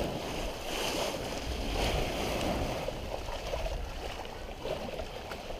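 Water washing along the hull of a sailing yacht moving slowly under sail, a steady rushing that swells and eases, with wind noise on the microphone.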